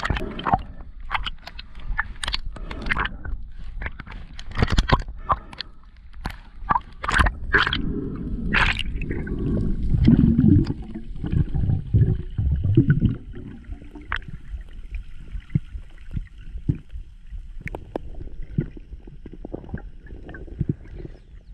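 Water sloshing and gurgling around an underwater camera as a freediver swims with a speargun, with many sharp clicks and knocks over a low rumble in the first half. It then settles to quieter water noise with a faint steady high hum.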